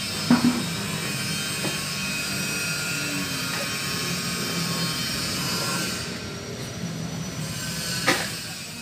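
A steady machine-like whirring hiss with a few sharp clicks; the higher part of the hiss drops away about six seconds in.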